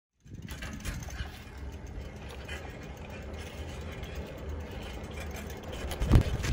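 Bicycle rolling along an asphalt street: the bike's mechanism ticking and rattling over a low rumble, starting abruptly just after the start, with a sharp knock about six seconds in.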